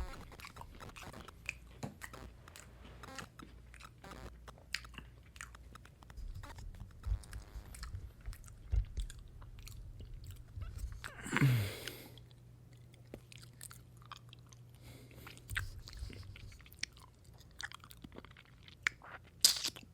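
A person chewing and biting into a fried chicken sandwich close to the microphone, with many small irregular crunchy clicks. About halfway through there is one short vocal sound that falls in pitch.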